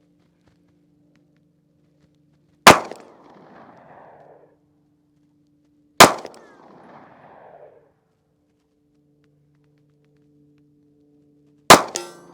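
Three single shots from an AR-15 rifle, unevenly spaced, the first about three seconds in and the last near the end. Each crack is followed by a ringing tail lasting over a second.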